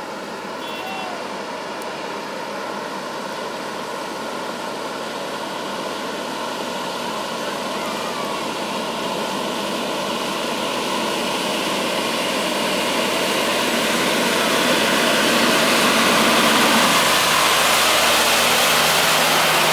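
Kenworth road train's diesel engine pulling steadily through floodwater, growing louder as it approaches, with the rushing hiss of water sprayed off its bullbar and front wheels swelling near the end.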